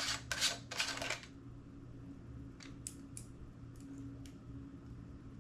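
Hands rubbing and handling a camcorder's plastic lens hood: scratchy rubbing strokes for about the first second, then a few faint clicks, over a low steady hum.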